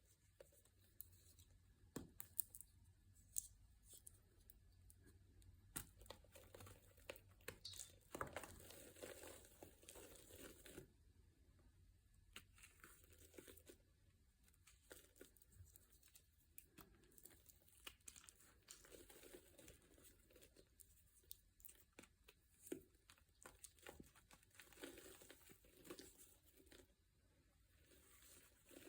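Quiet, irregular crinkling and crackling with sharp little clicks: some material being crushed and crumpled.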